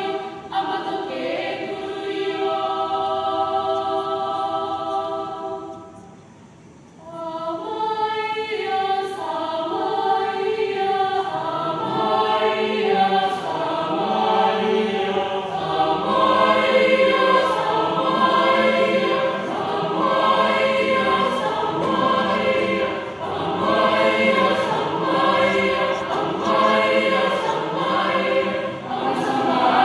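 Mixed choir of men and women singing unaccompanied in several parts. A long chord is held at first, the voices drop away briefly about six seconds in, then come back in moving parts over a low bass line that pulses about once a second.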